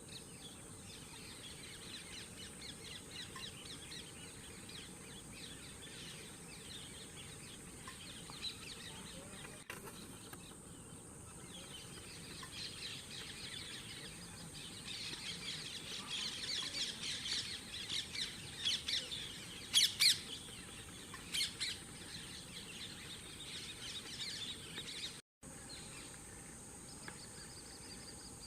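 Birds calling outdoors: rapid high chirps and twittering trills that build up around the middle, with a few louder sharp calls a little past two-thirds of the way in, over a steady faint high hiss.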